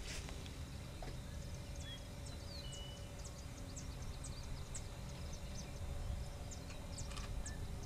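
Outdoor ambience: birds chirping with many short, high calls scattered throughout, over a low steady rumble and a faint steady hum.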